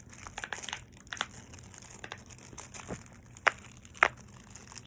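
Plastic packaging crinkling and crackling as a fidget toy is unwrapped by hand, with two sharper clicks about half a second apart in the second half.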